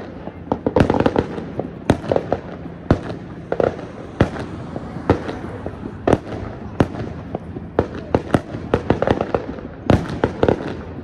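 Many fireworks and firecrackers going off: sharp bangs and pops at irregular intervals, several a second at times, over a continuous rumble of further explosions.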